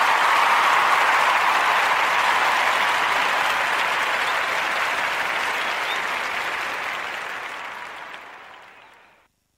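Recorded crowd applause, steady, then fading out over the last couple of seconds.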